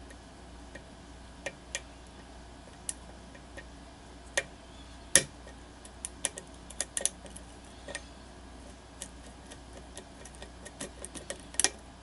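Small metallic clicks and ticks of a lock pick working the pins of a challenge lock held under tension, irregular and scattered throughout, the sharpest about five seconds in.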